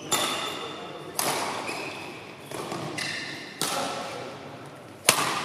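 Badminton rally: rackets striking the shuttlecock about once every one to two seconds, each hit sharp and echoing in the hall. Short high squeaks of court shoes come between the shots.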